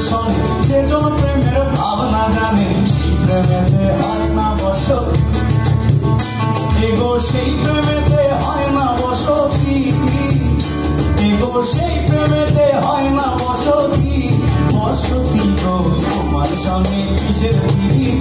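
Live Bangla folk song played on acoustic guitars and a cajon with a rattling shaker, and a voice singing the melody.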